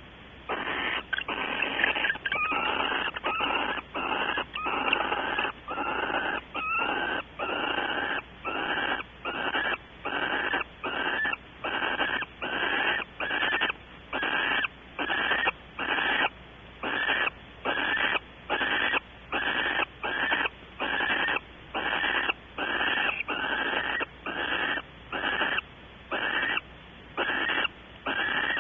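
Barn owl giving a long run of rasping, hissing 'snore' calls from the nest cavity, each about half a second long and coming about three every two seconds.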